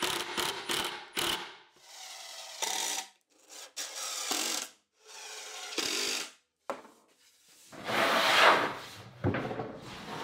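Cordless impact driver driving 1 3/4-inch construction screws into a 3/4-inch birch plywood cabinet in a series of short bursts. The longest and loudest burst comes about eight seconds in.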